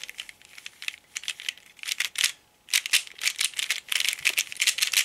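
Plastic 3x3 speedcube being turned by hand: quick runs of clicking and clacking as its layers snap through a G-perm algorithm. There is a brief pause about halfway, then a faster run.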